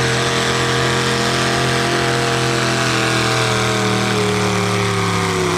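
Light modified pulling tractor's engine running loud and steady, its pitch slowly sinking over the few seconds.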